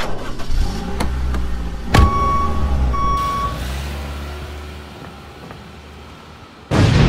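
Mitsubishi Outlander SUV's engine running with a low, steady rumble that gradually fades. A sharp knock about two seconds in is followed by two short electronic beeps about a second apart.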